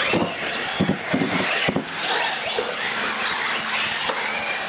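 Several electric radio-controlled UTVs racing on a concrete floor: the high whine of their motors rising and falling as they speed past, with a few sharp knocks in the first two seconds.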